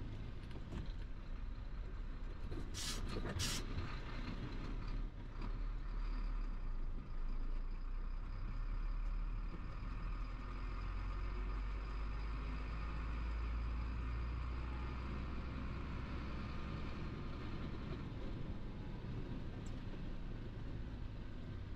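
Chenglong heavy truck's diesel engine running under way, heard from inside the cab, its low rumble swelling through the middle. About three seconds in come two short, sharp bursts of hiss.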